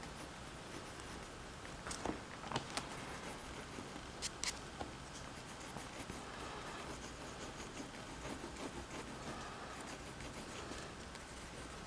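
Pencil scratching on paper in short, quick strokes while shading fur, with a few light clicks about two and four seconds in.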